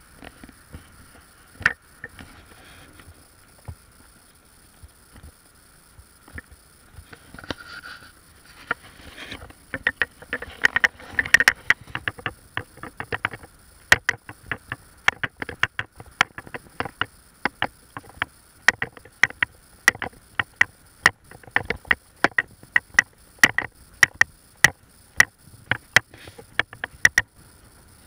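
Footsteps on a gravel path, heard close up as sharp clicks at an even walking pace of about two a second from about ten seconds in.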